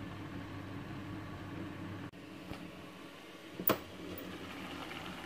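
A steady low hum of room tone, then a single sharp clink about two thirds of the way in as the glass lid of the cooking pot is lifted by its knob and knocks the pot's rim.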